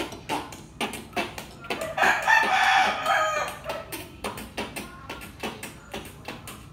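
Child beatboxing into a cupped hand: a steady run of short percussive mouth clicks and snares, about two to three a second. About two seconds in comes a loud, drawn-out pitched vocal sound lasting over a second.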